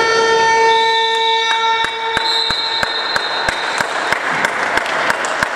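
Sports-hall buzzer sounding the end of the first half: one steady horn tone that lasts about two and a half seconds. It is followed by a run of sharp knocks on the wooden court floor, about two or three a second, like a handball being bounced.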